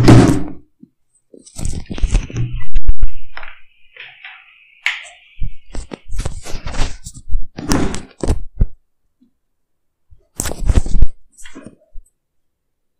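A series of irregular knocks and thuds in clusters, about two seconds in, from about six to nine seconds in, and again near eleven seconds.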